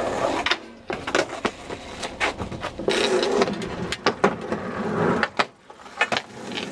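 Wheels rolling over a skate park ramp, with a run of sharp knocks and clacks as boards or wheels strike the ramp surface and coping.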